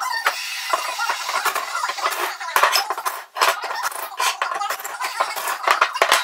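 Rapid, irregular metallic clinking and clattering as a cordless drill bores holes in steel flat strap, with a brief lull about three seconds in.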